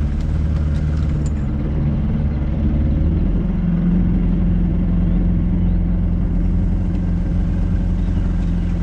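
An engine running steadily with a low hum, its pitch shifting about three seconds in.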